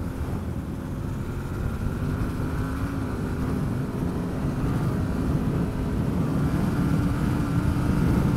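Yamaha Ténéré adventure motorcycle riding along a gravel road, its engine running steadily under a low rumble of wind and road noise. It grows gradually louder and a little higher in pitch as the bike gathers speed.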